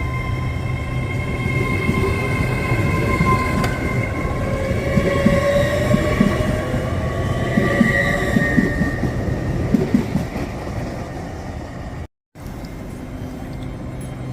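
A train running through the station: a steady high whine that drifts slowly in pitch, with wheels clacking over the rail joints for several seconds in the middle. The sound cuts out for a moment near the end.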